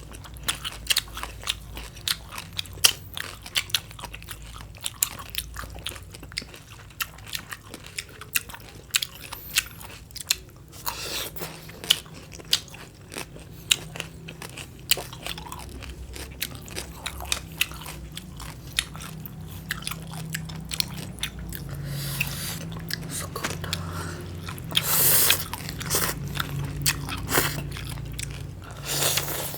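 Close-miked chewing and crunching of crisp raw green papaya salad and cucumber: many quick sharp crunches, with a few longer, louder crunches in the second half.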